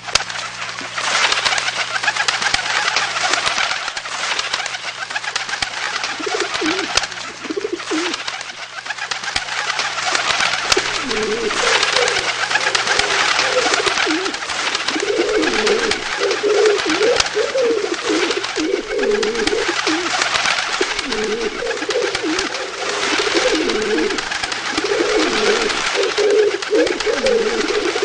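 Pigeons cooing again and again, more often from about eleven seconds in, over a constant dense rustle of fluttering wings.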